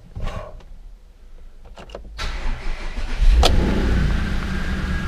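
Volkswagen Touareg's V8 petrol engine being started: the starter cranks from about two seconds in, the engine catches about a second later with a brief rev, then settles into a steady idle with no unusual noises. This is the first start after an oil and filter change.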